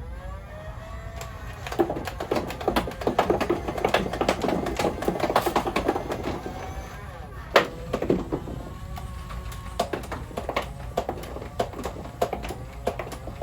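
Motorized Nerf flywheel blaster spinning its motors up and down with a whine that rises and falls, while the pusher rattles off darts in rapid clicks, busiest in the middle, with one sharp loud click about three-quarters of the way through.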